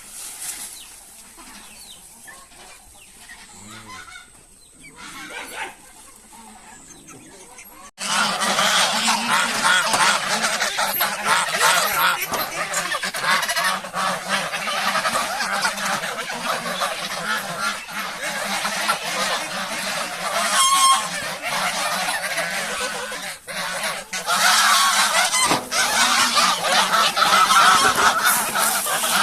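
Faint, sparse farmyard sounds, then a sudden cut about eight seconds in to a loud, dense, unbroken chorus of a large flock of farm poultry calling all at once.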